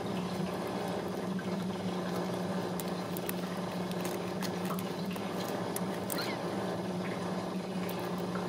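Newborn Ragdoll kittens nursing, with faint wet suckling clicks and a few tiny squeaks over a steady low hum.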